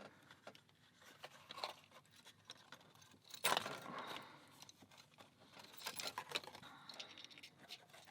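Small clicks, scrapes and rattles of hands working a key in an old US Mail padlock, with a louder clatter about three and a half seconds in and a run of clicks around six seconds in.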